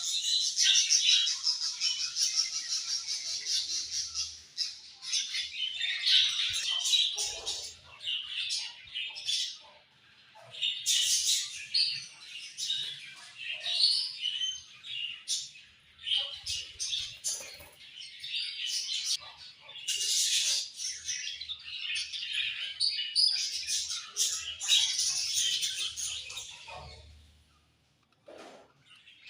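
A flock of budgerigars chirping, warbling and squawking together in a constant overlapping chatter, with a brief lull near the end.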